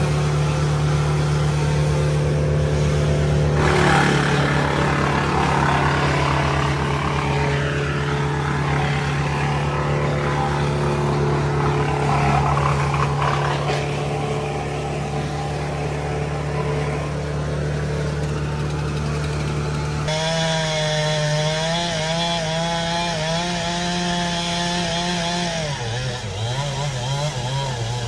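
Chainsaw cutting over the steady drone of running engines during tree felling. About twenty seconds in the sound changes abruptly to an engine note that wavers up and down as it revs.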